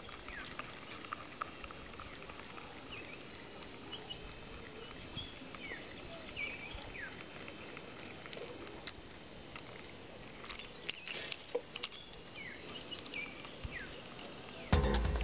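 Scattered short, high, falling animal chirps over a steady hiss, with a few sharp clicks. Music comes in near the end.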